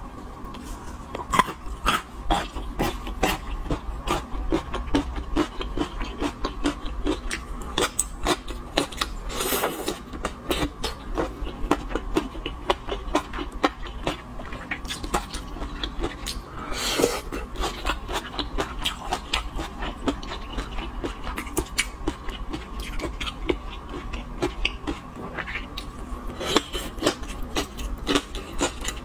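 Close-miked eating sounds from seafood: chewing with many small wet clicks and smacks, and two longer slurps, about a third of the way in and just past halfway.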